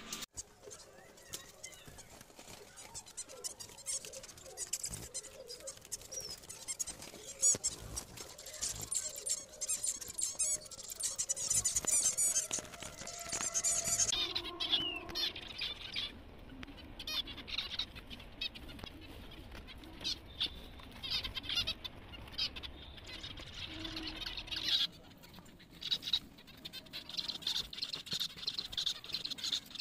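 A colony of finches chirping and calling, with many short high-pitched chirps overlapping, densest about a third of the way in, and wings fluttering and small taps in between.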